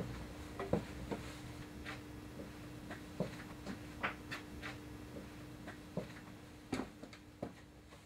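Faint room tone with a steady low hum and scattered light clicks and taps at irregular intervals, fading out near the end.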